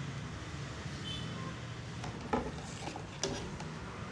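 A long ruler being handled and set down on a paper pattern sheet on a table: two light knocks about a second apart, a little past halfway, over a low steady background hum.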